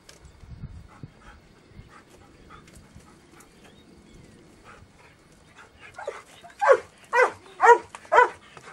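Search-and-rescue dog barking in a steady series, about two barks a second, starting about six seconds in: the bark alert a rescue dog gives at a find in rubble. Before it, faint rustling and small knocks among debris.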